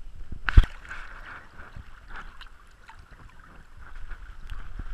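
Shallow creek water splashing and swirling right at the microphone while a brown trout is held and let go in the current, with scattered small splashes and one sharp knock about half a second in, the loudest sound.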